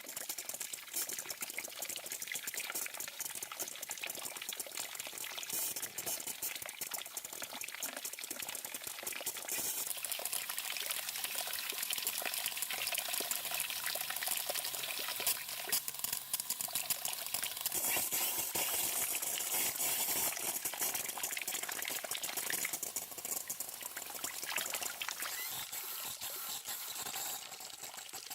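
Continuous water-like noise, thick with tiny crackles and pops, easing off slightly near the end.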